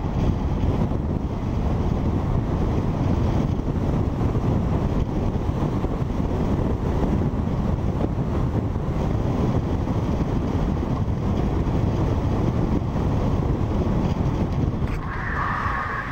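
Steady rushing wind buffeting the microphone of a camera moving fast downhill, over a low rumble of road noise. A short higher tone sounds near the end.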